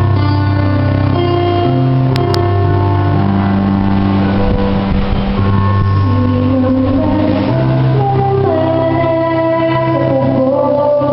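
A group of girls singing a hymn into microphones over instrumental accompaniment, heard through amplification. The voices are clearest in the last few seconds.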